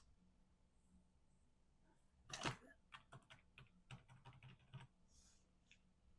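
Faint handling of small cut cardstock pieces on a table: a brief rustle about two and a half seconds in, then a quick run of light taps and clicks.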